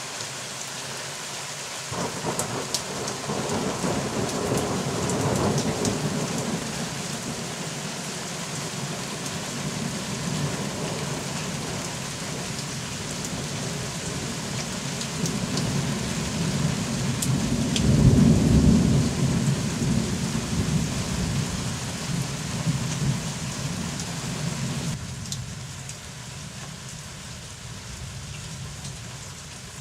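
Rolling thunder over steady rain: a long low rumble builds from about two seconds in, is loudest a little past halfway, then dies away. Near the end the sound drops abruptly, leaving quieter rain.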